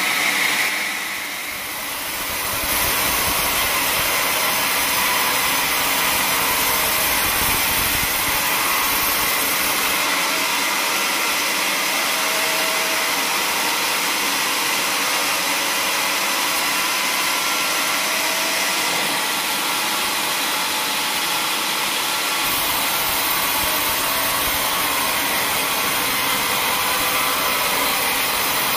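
Large band sawmill running, its band blade cutting lengthwise through a teak log with a steady, continuous noise. The noise dips briefly about a second in.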